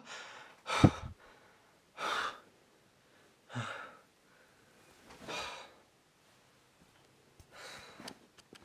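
A man gasping sharply as he wakes with a start, then breathing heavily in four long, separate breaths.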